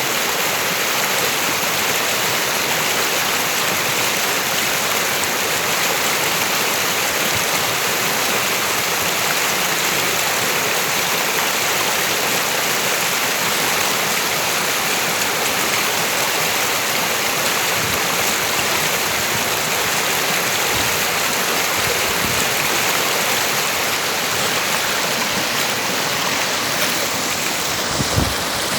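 River water rushing steadily, an unbroken flowing sound, with a brief low thump just before the end.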